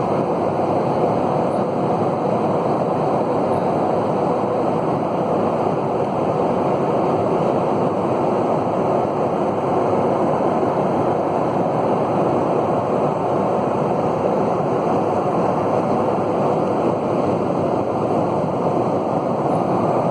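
Airliner cabin noise in flight: a steady, even rush of engines and airflow, with no change throughout.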